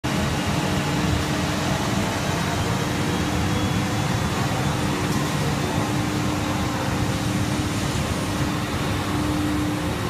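ABS/HIPS plastic sheet extrusion line running: steady machinery noise with a steady hum.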